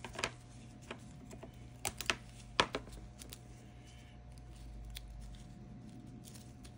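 A handful of sharp, light clicks and taps from small parts being handled on a workbench, the loudest a little over two and a half seconds in, over a steady low hum.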